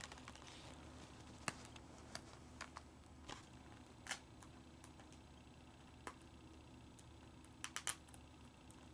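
Faint, scattered light clicks and taps from hands working at a plastic Blu-ray case and its wrapping, with a quick cluster of clicks near the end.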